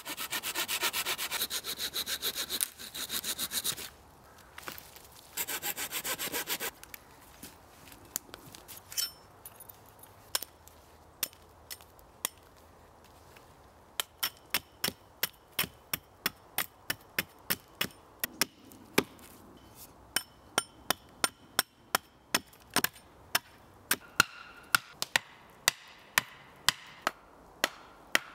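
A hand saw cutting through wood in two spells of back-and-forth strokes. Then comes a series of sharp wooden knocks from an axe striking a wooden stake, sparse at first and then about two a second, as the stake is driven into the ground.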